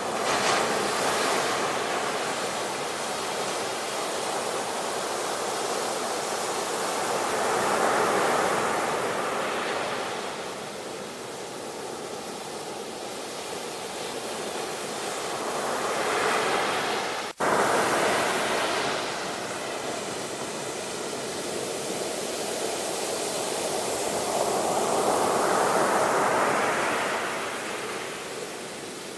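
Ocean waves breaking and washing on the shore, swelling and easing every eight to ten seconds, with a sudden brief cut in the sound about two thirds of the way through.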